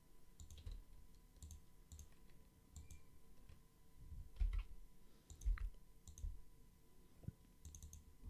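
Faint, irregular clicks of a computer mouse and keyboard as modelling commands are entered, some with a soft low thump.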